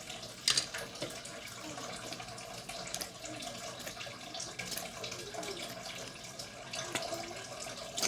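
Tap water running steadily, filling a rice cooker's inner pot, with a few sharp clinks of a spoon against the dish, the loudest about half a second in.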